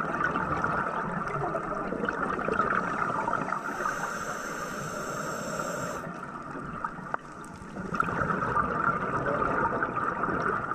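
Moving water: a steady, noisy rush and splash that dips briefly about seven seconds in.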